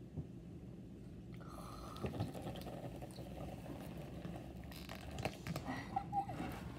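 Faint rustling of a plastic snack-chip bag held up to a face, with a few soft crinkles about two seconds in and again near five seconds, over a low steady room hum.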